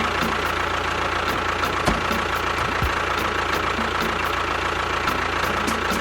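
An engine running steadily, with a constant hum and faint ticks about three times a second.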